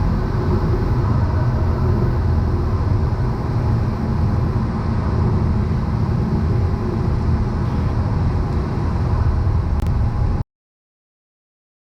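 Cessna 172 Skyhawk's engine and propeller droning steadily in the cabin on final approach. The sound cuts out abruptly to dead silence about ten and a half seconds in.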